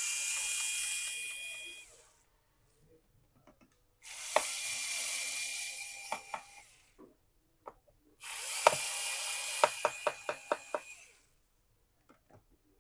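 Small cordless electric screwdriver running in three bursts of a few seconds each, a steady high whir, backing out a laptop's back-cover screws. A quick run of sharp clicks sounds during the last burst.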